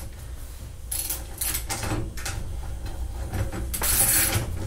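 Scraping and rubbing of a barrel vise clamp being cranked down on a rifle barrel: a few separate strokes, the longest and loudest near the end.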